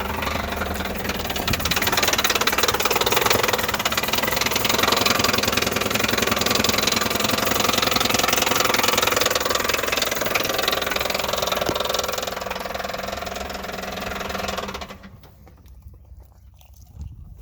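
Chevy Impala engine running with a rapid, steady knocking clatter: bad internal engine noise that the owner takes to mean the engine is finished. The sound drops away sharply about fifteen seconds in.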